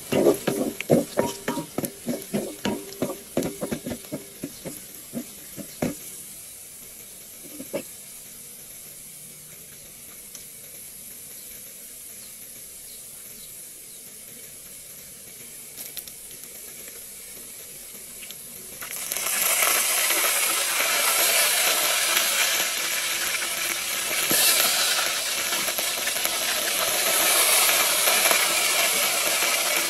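A pot of matoke cooking. For the first few seconds there are quick rhythmic scrapes of stirring, which fade out, leaving a quiet steady hiss. About two-thirds of the way through, a loud frying sizzle starts and keeps going.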